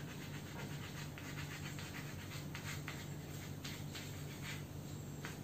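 Chalk faintly scratching and tapping on a blackboard as words are written, in many short strokes, over a steady low hum.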